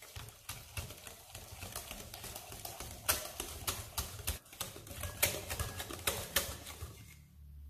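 Stainless wire balloon whisk beating a runny egg, sugar and oil batter by hand in a glass bowl: fast, irregular clicking of the wires against the glass. The whisking stops about seven seconds in.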